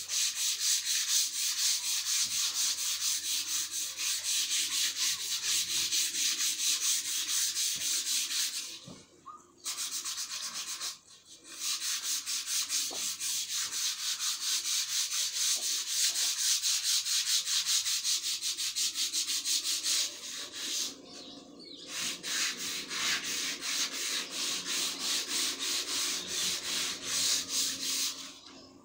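Hand sanding a long wooden board: sandpaper rubbed back and forth over the wood in quick, even strokes. There are a few short pauses, and it stops just before the end.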